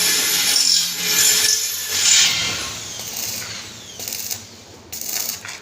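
A power tool grinding or cutting metal, a rough hissing rasp. It eases off about two seconds in with a falling whine, then comes back in two short bursts near the end.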